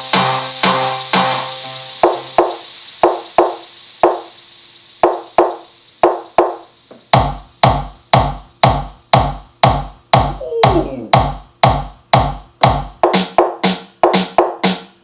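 A programmed drum pattern from Maschine's Lucid Mission expansion kit plays back. Sparse, fading percussion hits give way about seven seconds in to a steady beat with a heavy kick on each hit, about three hits a second.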